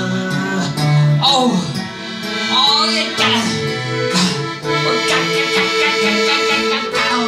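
Informal band music: a piano accordion holds sustained chords over a plucked and strummed acoustic guitar, and a voice sings a couple of short phrases, about a second in and again near the three-second mark.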